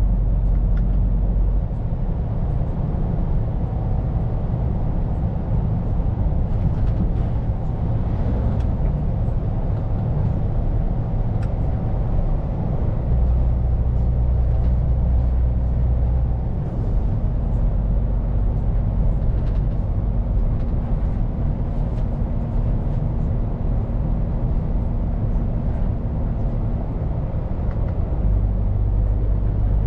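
Scania P410 truck's diesel engine running on the road, heard from inside the cab as a steady low rumble. Its low note shifts in steps a few times.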